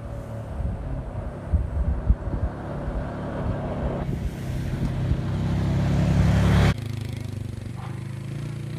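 Motor vehicle rumble, growing steadily louder and then cutting off suddenly about two-thirds of the way through, followed by a steadier, quieter low hum.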